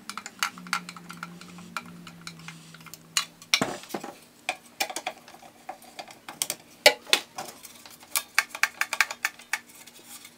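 Hand screwdriver turning screws into a band saw's plastic motor housing, with many sharp, irregular clicks and clinks of the tool and the plastic and metal parts being handled.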